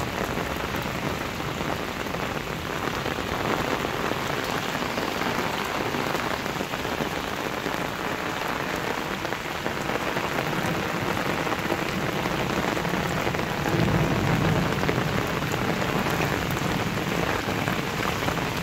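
Heavy cloudburst rain pouring onto a flooded street, a steady dense hiss of drops splashing into standing water. A low rumble swells briefly about fourteen seconds in.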